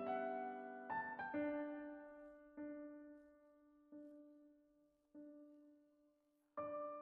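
Quiet background piano music: slow, single sustained notes, each ringing out and fading before the next.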